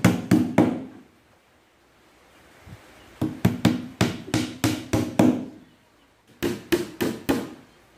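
Claw hammer driving nails into the edge of a plywood cabinet panel: three runs of quick strikes, about four a second, with short pauses between them.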